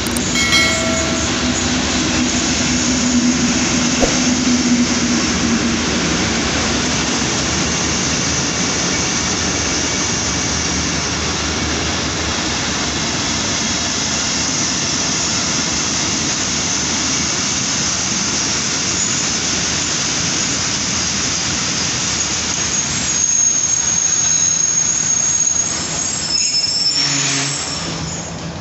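A Pakistan Railways passenger train pulling into a station behind a GE AGE-30 diesel-electric locomotive: a steady low engine tone for the first few seconds, then the continuous rumble and clatter of coach wheels on the rails as the carriages roll past. High-pitched wheel squeal rises over it near the end as the train slows.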